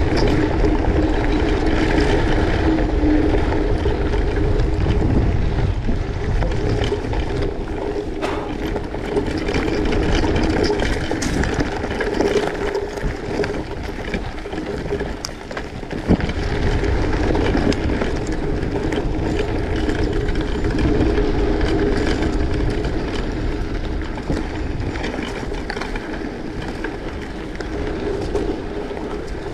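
Steady rumble and hum of a vehicle in motion, with a few sharp knocks and rattles along the way.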